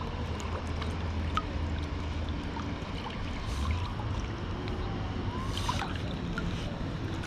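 Shallow river current flowing steadily around hands holding a steelhead in the water, with a low rush and a few small splashes and trickles, one a little louder about five and a half seconds in.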